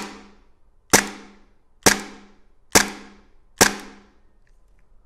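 Tokyo Marui Glock 17 Gen.4 gas blowback airsoft pistol fired five times, about a second apart, each shot a sharp crack of the gas blowback cycling the slide. It is being dry-fired on normal-pressure gas without BBs, the slide stop held down so the slide keeps cycling.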